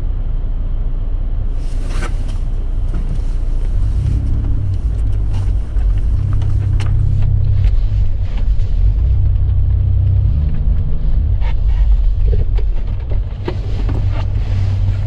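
A vehicle engine running at low revs, a steady low hum that grows stronger from about four seconds in, with light hiss and scattered clicks over it early on.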